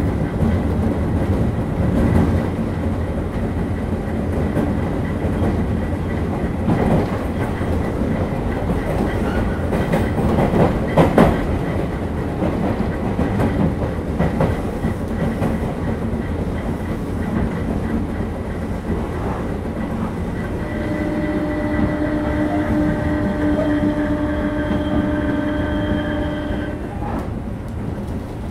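JR 201 series electric train running, with a steady rumble and the clatter of wheels over rail joints. About 20 seconds in, the whine of its thyristor chopper control comes in as several steady tones, then fades out near the end.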